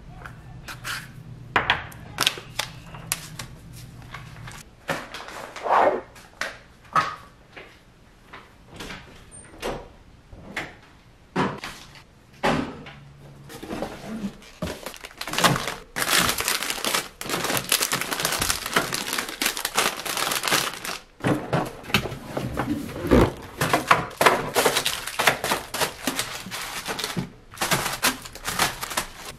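Objects being handled: an irregular run of knocks, thunks and clicks with rustling of packaging, busier in the second half.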